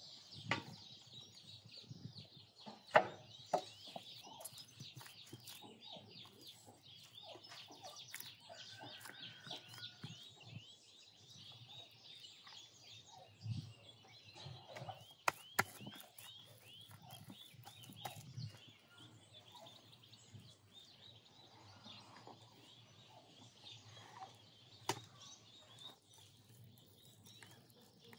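Birds chirping continuously in quick, high repeated notes, with a few sharp knocks and clicks from time to time, the loudest about three seconds in and a pair near the middle.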